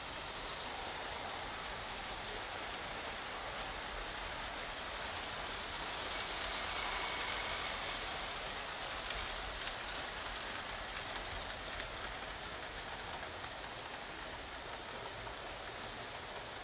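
Vintage Märklin model train running on metal M-track: a steady, fine rattling whir of small wheels on the rails, growing a little louder about halfway through as the coaches pass close by.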